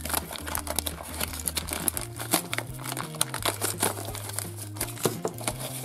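Plastic and foil wrapping of a My Little Pony Cutie Mark Crew surprise pack crinkling and crumpling in the hands as the toy packet is worked out of its container, with a steady run of irregular crackles.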